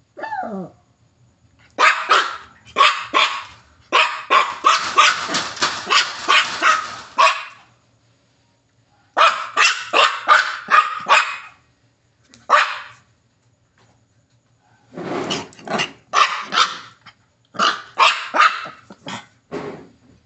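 Miniature pinscher barking in repeated bursts of sharp yaps, with one long run of rapid barking, after a short falling whine at the very start.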